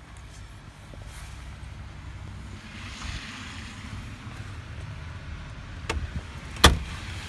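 A front door pulled shut: a sharp click, then a louder single knock about six and a half seconds in, under a low steady rumble.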